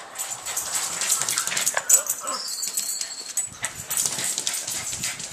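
A small dog whining and barking, with scuffling clicks throughout. Just after two seconds in, a recorded thirteen-lined ground squirrel gives a short high whistle from a laptop speaker.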